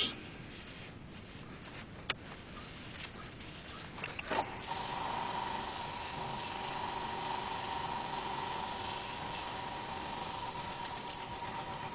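A few small clicks from handling the wax tin. About four and a half seconds in, a Galaxy DVR wood lathe starts and runs steadily with a high whine, and a waxed cloth held against the spinning sycamore bowl adds a hiss as the wax is buffed in.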